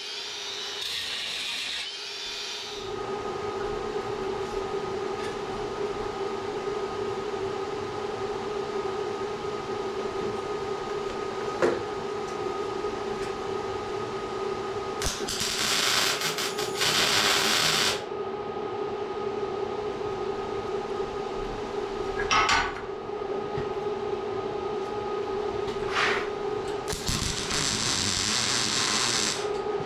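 A Makita cordless angle grinder cuts through a tack weld for the first couple of seconds. Over a steady hum, an arc welder then lays tack welds: a burst of about three seconds midway, two short ones, and another of two or three seconds near the end.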